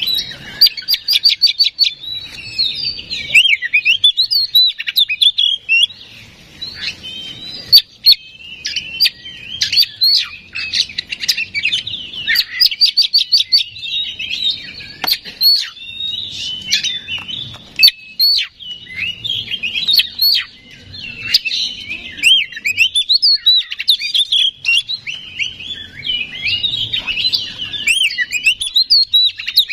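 Oriental magpie-robin singing a loud, near-continuous, varied song of whistled phrases, broken by fast runs of rapidly repeated sharp notes. This is the full, energetic song that keepers use as a lure to rouse other magpie-robins.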